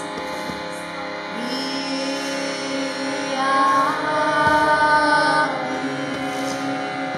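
Harmoniums holding a steady drone of sustained reed chords under chanting voices. A voice slides up into a held note after about a second, and a woman's voice sings a louder, higher note about halfway through that is the loudest part, easing off near the end.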